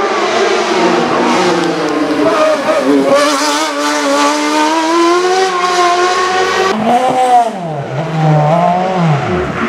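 Race car engines revving hard under full acceleration, the pitch climbing and dropping with each gear change. About two-thirds of the way through, the sound cuts to another car whose engine note falls off sharply and then revs up again.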